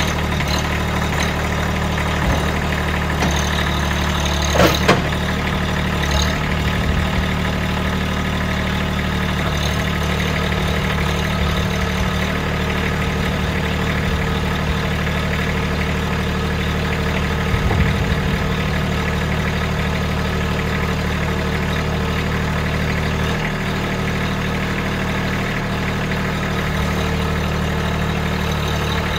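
Kubota B2601 compact tractor's three-cylinder diesel engine idling steadily just after starting, with a sharp knock about five seconds in and a few smaller knocks just before halfway.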